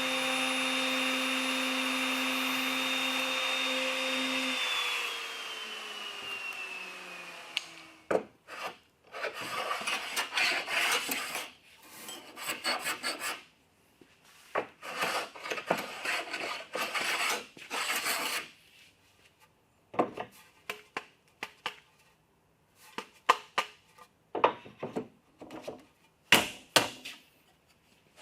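A power tool's motor running steadily, then switching off and spinning down. It is followed by repeated hand-tool strokes rubbing on wood, each about a second long, and then a few light sharp taps on wood near the end.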